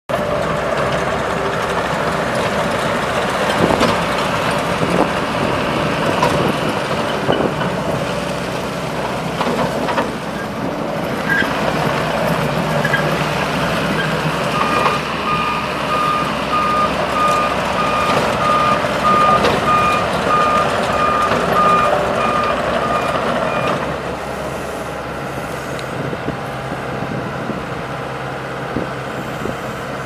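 Takeuchi TL250 compact track loader's diesel engine running as the machine drives around, with scattered knocks and rattles. From about halfway its reversing alarm beeps steadily for roughly ten seconds, and after it stops the machine runs a little quieter.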